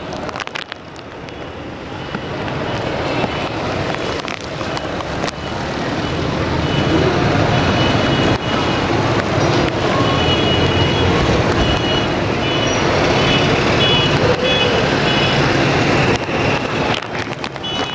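Busy street traffic: engines of cars, trucks and motorcycles running and passing, building in loudness over the first several seconds and then holding steady.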